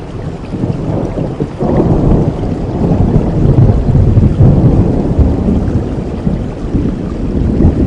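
Steady rain with a low rolling rumble of thunder that swells about two seconds in and slowly fades.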